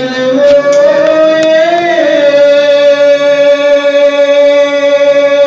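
A man's solo voice singing a naat without accompaniment. It wavers and slides in pitch for about two seconds, then holds one long steady note.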